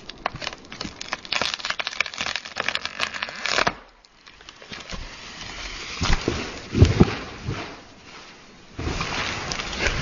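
A felled conifer's hinge wood cracking and popping rapidly as the tree tips over, stopping abruptly about four seconds in. A rush of branches follows, then a heavy thud as the trunk hits the ground about seven seconds in, and more crashing near the end.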